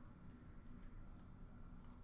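Near silence: low room hum with a few faint clicks of trading cards being handled.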